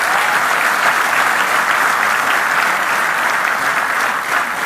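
Large seated audience applauding steadily, many hands clapping.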